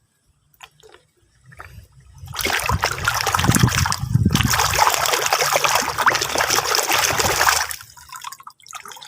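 Water pouring and splashing for about five seconds, with a short break about four seconds in, as dirty toys are washed. A few light knocks come before it.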